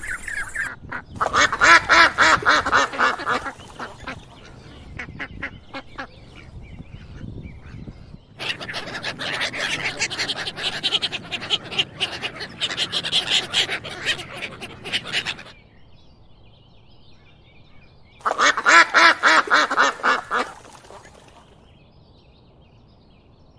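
Ducks quacking in fast runs of repeated calls, in three bouts: a short one near the start, a long one in the middle and a short one near the end, with fainter quacks in between.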